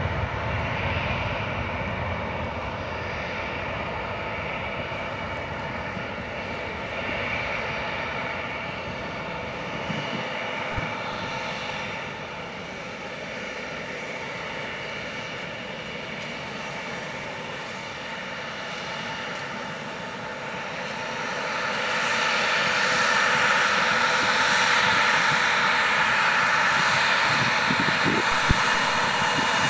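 Jet airliner engines at takeoff thrust: a steady rush of engine noise with a faint whine, easing off somewhat in the middle. About two-thirds of the way through, a louder, hissier jet engine noise swells up and holds.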